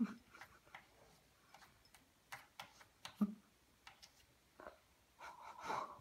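Cat lapping water from a drinking glass: faint, irregular soft ticks of the tongue, with a couple of duller knocks against the glass. Near the end a louder breathy sound comes in.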